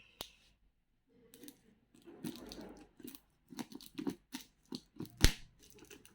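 Parcel packaging being torn and crinkled open by hand: irregular rips, crackles and clicks, with one sharp snap about five seconds in.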